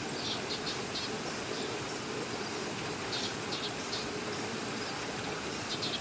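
Outdoor ambience: a steady hiss with short, high chirps that come in three quick clusters, about three seconds apart.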